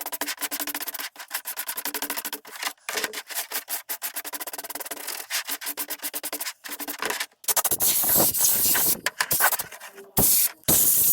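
A brush scrubbing the chainsaw in quick back-and-forth strokes. About seven seconds in, a louder hissing spray takes over, coming in bursts with short breaks.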